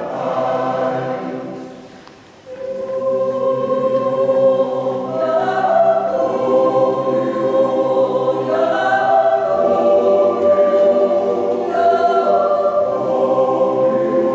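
Swiss yodel club choir of men's and women's voices singing unaccompanied in close harmony, holding long sustained chords that shift together every few seconds. The sound thins out briefly about two seconds in, then comes back fuller.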